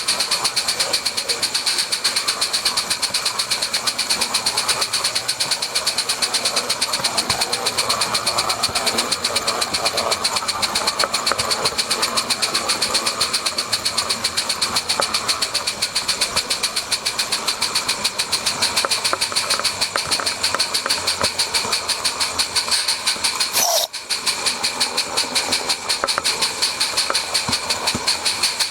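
Small garden-railway steam locomotive working a goods train, with a fast, even beat of exhaust beats over a steady hiss. The sound breaks off for an instant near the end.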